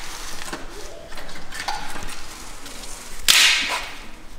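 Someone tending the firebox of a wood-fired brick stove to build up a strong fire: scattered faint knocks and rustling, then a short, louder rush about three seconds in.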